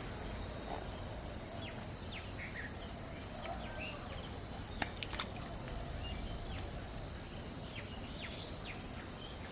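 Small birds chirping over a steady outdoor background hiss, in many short downward-sweeping calls, with a couple of sharp clicks about halfway through.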